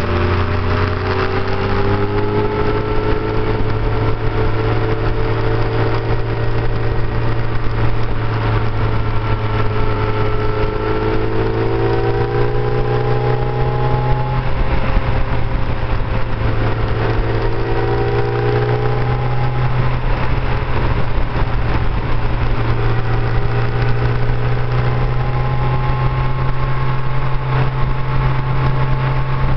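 Motorcycle engine running under way, its pitch rising and falling several times as the throttle is rolled on and off, over a steady low rumble.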